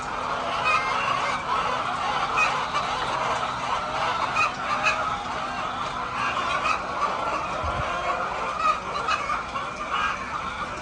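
A large flock of laying hens clucking and calling, many overlapping calls in a steady, dense chatter.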